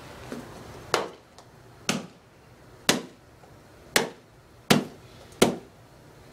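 A wooden war club made from an axe handle striking a wooden chair, six hard blows about a second apart, each a sharp crack with a short ring, the last two coming quicker. The blows are breaking in the side of the chair, which goes limp.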